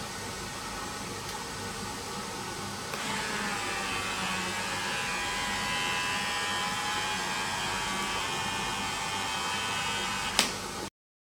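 Small 300:1 geared DC motor of a robotic leg's flex-hold-release mechanism whining steadily as it winds the tendon strings to flex the joint. It grows louder and its pitch shifts about three seconds in, and a sharp click comes near the end before the sound cuts off.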